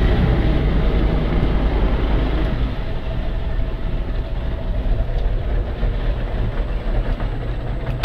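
Motorboat engine running steadily with a low hum, under a constant rushing noise.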